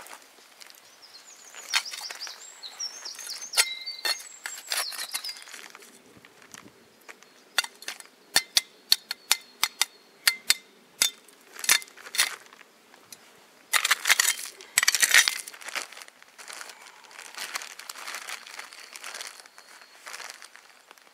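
Camp gear being packed away by hand: a quick run of sharp clicks and clinks of small hard items, then a loud crinkling rustle of bags or fabric being stuffed about two-thirds of the way in.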